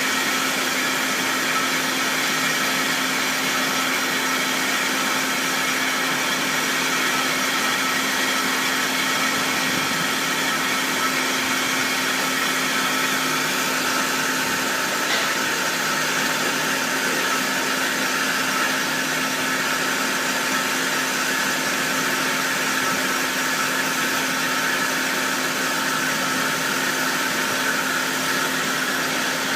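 GZ4232 12-inch metal-cutting band saw running, a steady machine hum with several held tones over its motor and blade noise.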